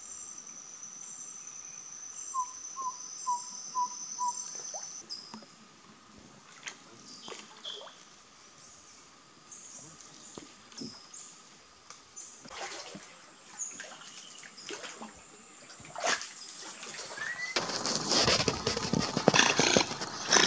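Tropical forest ambience: a steady high insect buzz with five evenly spaced short calls a couple of seconds in, then scattered clicks and short chirps. Near the end comes a louder, dense stretch of clattering noise.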